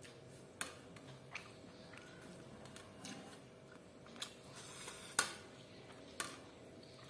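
Close-up eating sounds: chewing and biting into chicken dry fry, with about five sharp clicks, the loudest a little past the middle.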